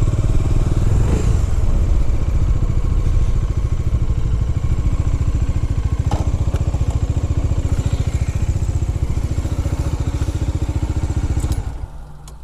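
Bajaj Dominar 400's single-cylinder engine running at low speed as the motorcycle rolls slowly, a steady, rapid pulse of firing strokes. A single click comes about halfway through, and the engine sound drops away sharply near the end.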